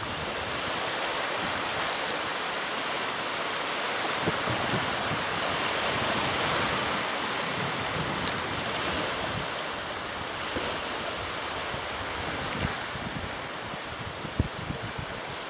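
Small waves washing onto the shore in a steady rush, with wind gusting across the microphone.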